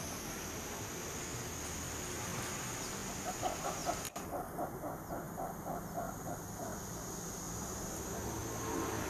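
An animal's quick series of short clucking calls, about a dozen at roughly four a second, starting about three seconds in and fading out a few seconds later, over a steady hiss and a thin high whine.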